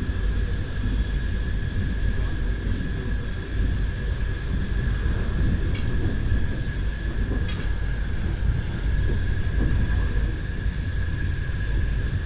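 Railway carriage rolling along the track: a steady low rumble with a constant high whine, and two short sharp clicks, about six and seven and a half seconds in.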